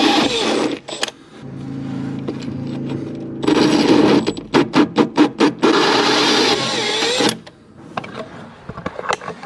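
Cordless drill driving a hole saw through a wooden caravan floor: loud grinding as the saw cuts, a quieter stretch of steady motor whine, then a run of about six short on-off pulses and more cutting, stopping about seven seconds in.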